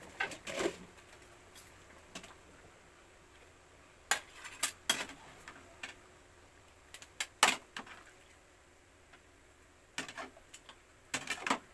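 Metal ladle knocking and scraping against a pan and a plate as pieces of boiled pork belly are lifted out of the water: scattered sharp clinks, some in quick pairs, over a low steady background.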